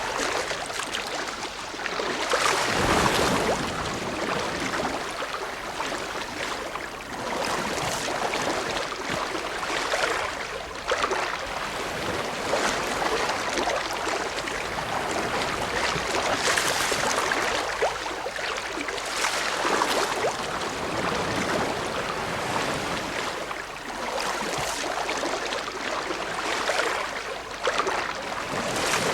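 Ocean waves breaking and washing ashore, a continuous hiss of surf that swells and recedes every few seconds.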